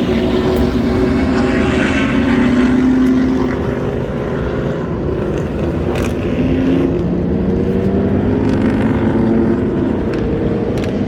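Vehicle engine running under way, with wind and road noise. The engine's pitch sags a few seconds in, then climbs steadily again.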